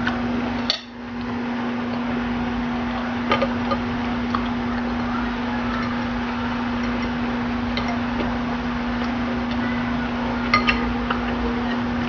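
Eating utensils clinking against a dish a handful of times, with two quick clinks close together near the end, over a steady hum and hiss.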